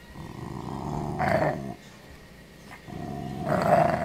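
A dog growling while it holds a chew bone in its mouth, guarding it from someone trying to take it away. Two low growls, the second starting about three seconds in and louder than the first.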